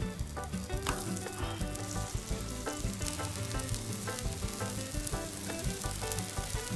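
Raw ground-beef patties sizzling steadily on a hot flat-top griddle as they start to cook, with light background music of short, changing notes.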